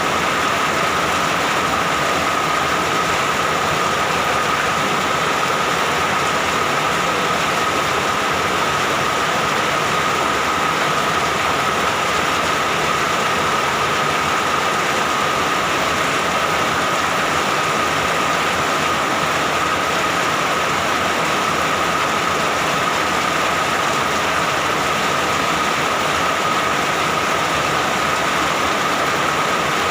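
Steady rainfall, an even rushing hiss with a thin steady tone running through it.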